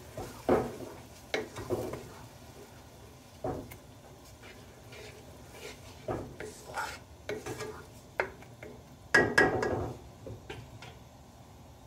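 Wooden spatula stirring and scraping a thick onion-tomato masala around a nonstick pan in irregular strokes. There is a louder clatter against the pan about nine seconds in.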